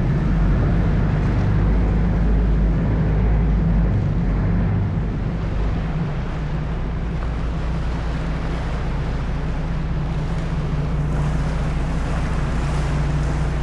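Sightseeing boat's engine running steadily, with a low hum and water and wind rushing past the hull.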